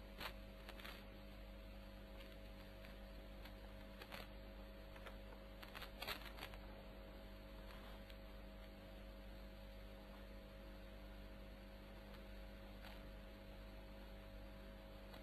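Near silence: a steady electrical hum with a few faint clicks, the loudest about six seconds in.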